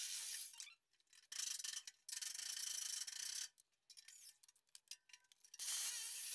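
Faint rasping and scraping in four short spells, each breaking off abruptly: a metal cabinet frame being worked into place against a wall and drilled for fixing.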